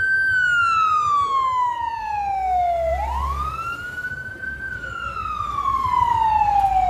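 Fire engine siren wailing as the fire truck drives past close by. The tone falls slowly for nearly three seconds, climbs again over about a second and a half starting about three seconds in, then falls slowly once more. The truck's engine runs low underneath.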